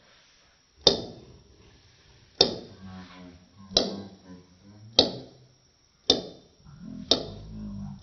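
A small ball bouncing on a desk, six sharp hits with the gaps between them steadily shortening as the bounces die down. The sound is slowed down, so each hit is followed by a drawn-out ring.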